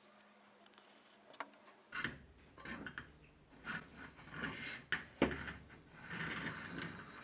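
Hard objects handled and rubbed together: irregular scraping and rubbing with scattered clicks and knocks, one sharp knock about five seconds in, after faint ticks in the first two seconds.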